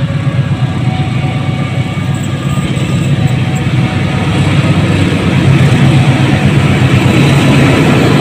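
A CC 206 diesel-electric locomotive hauling a passenger train approaches. Its engine rumble grows steadily louder as it nears.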